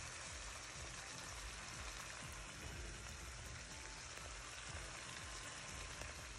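Steaks searing in melted butter in a pan, sizzling steadily with a fine continuous crackle.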